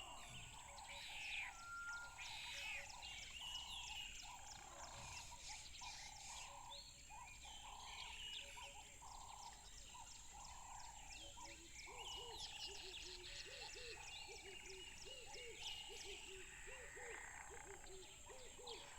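Many birds singing and calling at once, a dense mix of chirps and short phrases over a steady high-pitched tone. A little over halfway through, a lower call starts repeating rapidly beneath them.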